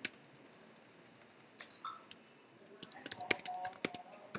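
Typing on a computer keyboard: a few scattered key clicks, a lull of about two seconds, then a quick run of keystrokes near the end.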